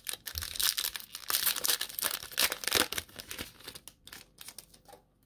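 Trading-card pack wrapper being torn open and crinkled, a dense crackling for about three and a half seconds that thins to a few light rustles and stops.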